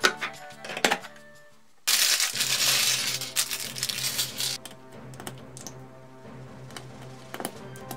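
Plastic LEGO pieces clicking together, then a clear plastic parts bag suddenly torn open and rustled for a couple of seconds, with a few light plastic clicks afterwards, all under light background music.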